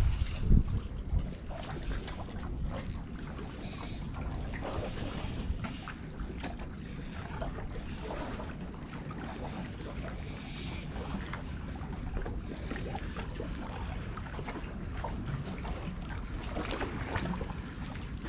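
Steady low rumble of wind buffeting the microphone over harbour water, with no clear separate events.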